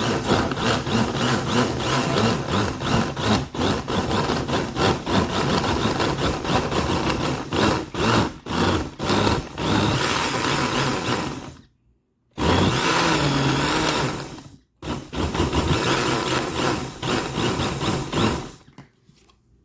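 Countertop blender chopping green onions, garlic, peppers and tomato with a little water. It runs for about twelve seconds, stops, then runs twice more in short bursts before stopping near the end.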